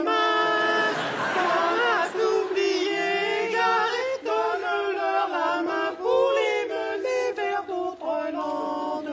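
Several male voices singing together in close harmony without accompaniment, holding and sliding between chords with short breaks.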